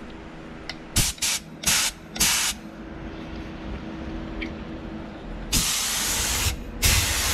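Compressed-air paint spray gun hissing as it test-sprays single-stage paint to check its fan pattern. It gives four short trigger pulls in the first couple of seconds. About two-thirds of the way in come two longer spray passes of about a second each.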